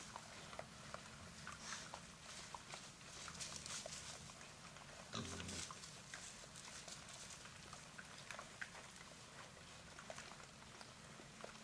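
Wild hogs feeding and rooting: faint rustling and crunching ticks, with one short low grunt about five seconds in.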